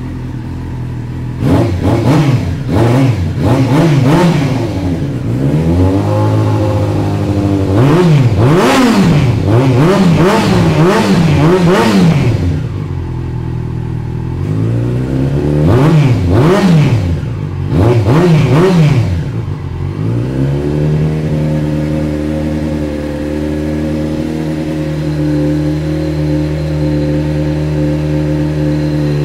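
Yamaha Fazer 600's inline-four engine, breathing through an aftermarket muffler meant to make it roar, blipped repeatedly at standstill: three bursts of quick revs rising and falling, with idling between them, then a steady run for the last eight seconds or so.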